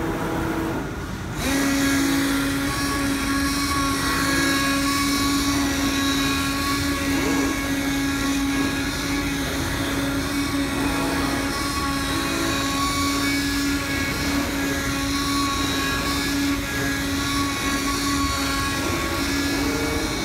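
RZCRT-2516 digital cutter running as its cutting head works across quilted 5D car-mat material: a steady mechanical hum and hiss. A steady buzzing tone comes in about a second and a half in and holds through the rest.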